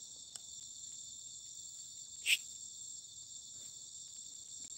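Steady high chorus of night insects, with a single brief burst of noise about two seconds in.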